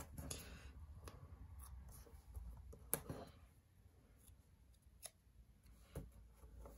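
Faint rustling of paper and sticker sheets being handled, with a few light clicks.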